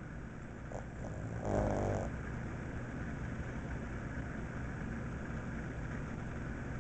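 Pug snoring: a faint short snore just under a second in, then one loud snore lasting about half a second, about a second and a half in.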